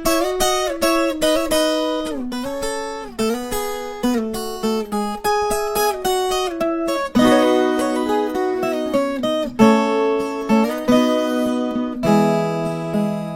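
Solo viola caipira played in a quick run of plucked melody notes and chords, in the country moda de viola style.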